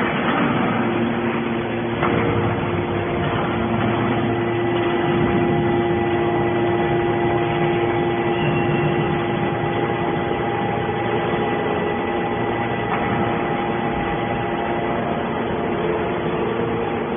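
Hydraulic scrap metal baler running steadily, its power unit giving a constant hum with a held whine over it. There is a faint knock about two seconds in and another near the end.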